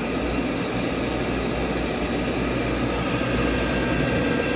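Myford MG12 cylindrical grinder running with its main grinding-wheel spindle switched on: a steady machine whir and hum.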